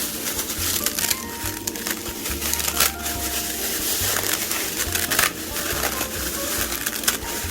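Dry instant ramen noodles being crushed, with irregular crunching and crinkling of the packaging. Background music plays quietly underneath.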